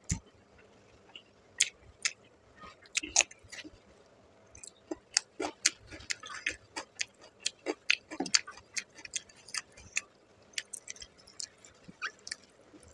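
Close-miked eating of rice with fish curry by hand: a run of short, sharp, wet clicks and smacks, coming thickest in the middle, from chewing and from fingers working the rice on a steel plate.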